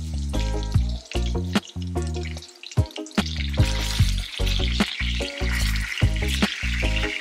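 Blue marlin steaks sizzling in hot oil in a stainless steel pan. The sizzle grows louder from about three seconds in, as the steaks are turned with tongs. Background music with a steady beat and strong bass plays throughout.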